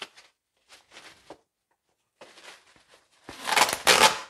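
Bubble wrap rustling and crinkling as a cardboard box is worked out of it, in short scattered crackles and then a louder, longer rustle near the end as the box slides free.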